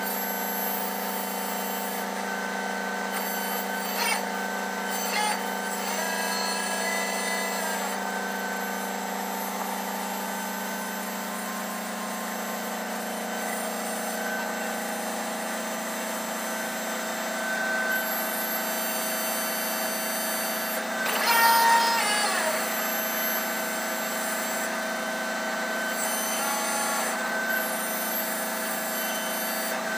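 Offshore crane's machinery running steadily inside the operator's cab, a constant drone made of several fixed tones. A few brief chirps come through, and a louder warbling sound rises and falls about 21 seconds in.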